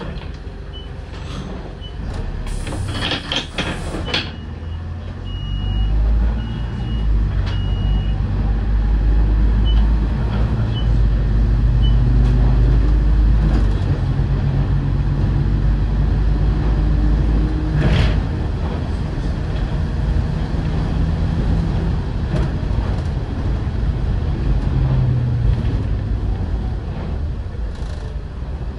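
Interior of an Optare Solo SR bus: a string of high electronic beeps and a short burst of air hiss, then the diesel engine pulls away and climbs in pitch through several gear changes, with a single sharp knock about halfway through.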